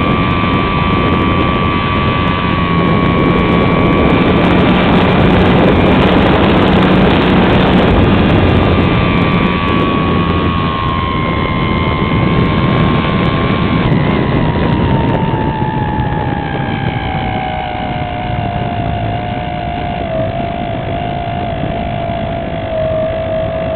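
Electric motor and propeller of a radio-controlled SIG Riser glider whining steadily, heard from a camera on the plane with air rushing over the microphone. About two-thirds of the way through, the whine falls in pitch as the motor is throttled back on the approach to landing.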